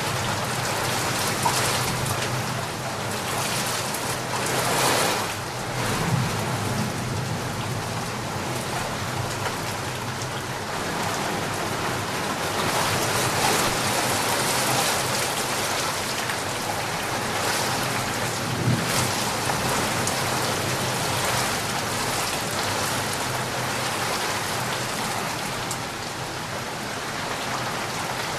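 Steady heavy rain falling on surfaces, a dense even hiss with scattered individual drop ticks and gentle swells in intensity.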